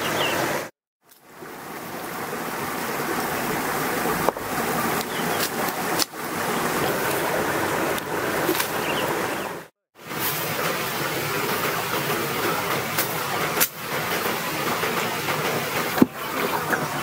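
Stream water rushing steadily over rocks, with a few sharp clicks or snaps now and then. The sound cuts out briefly twice.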